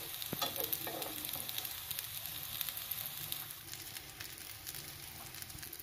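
Rajma and soya kebab patties shallow-frying in oil in a non-stick pan: a steady sizzle with small crackles.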